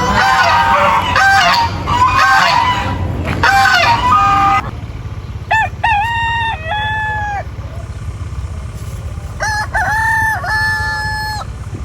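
Roosters crowing: a dense overlapping run of crows and clucks for the first few seconds, then two clear single cock-a-doodle-doo crows, each about two seconds long, near the middle and near the end, over a steady low hum.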